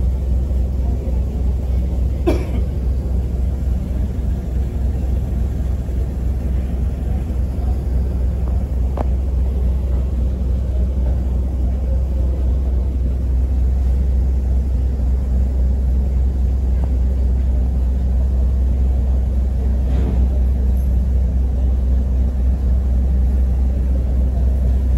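The Miyajima ferry's engine droning steadily, a deep continuous hum. A few short clicks sound over it, the clearest about two seconds in.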